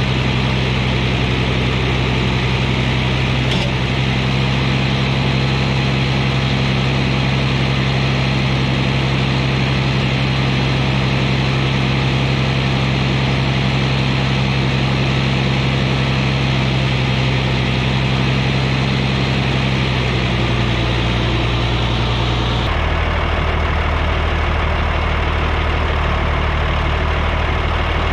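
A vehicle engine idling steadily. About three-quarters of the way through, the note drops to a lower pitch and stays there.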